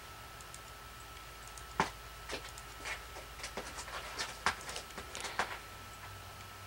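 Irregular clicking and tapping of a computer's controls, about a dozen sharp clicks over some four seconds, starting about two seconds in. A faint steady high tone hums behind them.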